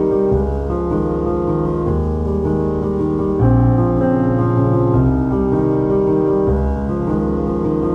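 Background piano music, with held chords changing every second or two.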